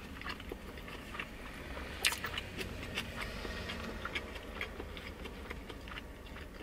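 A person chewing food with small, irregular wet mouth clicks, and one sharper click about two seconds in.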